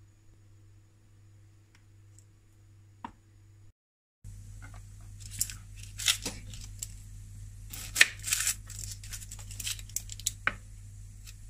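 Knife peeling the dry, papery skin off an onion on a wooden cutting board: scattered scratchy tearing and crinkling sounds with sharp clicks of the blade. Before that, a few seconds of quiet room tone with a single click.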